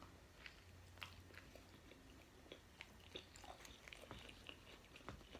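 Faint close-up chewing of a breakfast Crunchwrap: soft wet mouth clicks and small crunches at irregular intervals.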